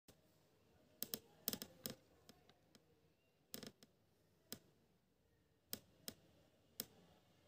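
A few faint, irregular light clicks and taps, some in quick pairs, scattered over a near-silent background.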